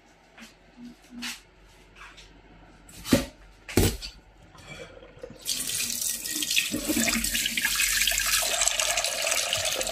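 Tap water running into a small stainless steel pot in a stainless steel sink as it is rinsed out, starting a little past halfway. Before that, a few light clicks and two sharp knocks.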